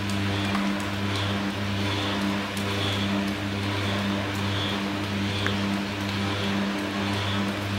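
Steady mechanical running with a low hum that pulses a little more than once a second, over a hiss with scattered crackles, like an old film projector added as a vintage-film sound effect.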